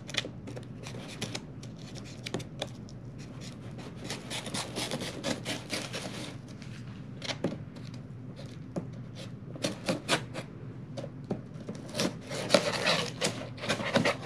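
A knife blade slitting and scraping along packing tape on a cardboard record mailer, mixed with scattered clicks and rustles of the box being handled. The longest scraping runs come about four seconds in and again near the end.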